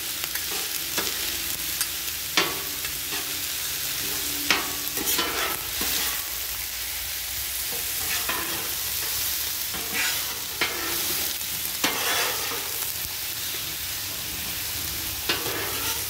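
Ground beef and diced onions sizzling on a Blackstone flat-top griddle, with a steady frying hiss. Metal spatulas scrape and clack against the steel cooktop at irregular moments as the meat is chopped up and mixed.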